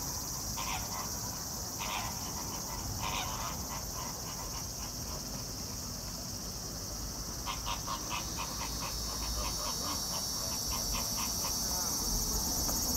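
Steady high-pitched insect chorus, with short scratchy ticks now and then and a quick run of them a little after halfway.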